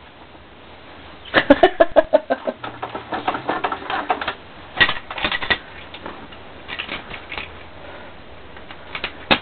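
Hoover upright vacuum's brush bar and belt being worked into the plastic base by hand: a run of quick plastic clicks, rattles and knocks, then a few scattered clicks.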